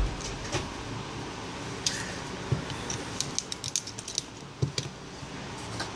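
Small clicks and taps of fingers and tools on the parts of an opened iPhone 4 during disassembly, with a thump at the start, a quick run of clicks about three to four seconds in and another thump soon after.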